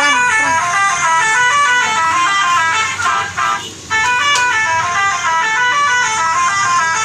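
Bus's multi-tone 'telolet' musical air horn playing a quick melody of stepped notes, pausing briefly about three and a half seconds in and then playing again.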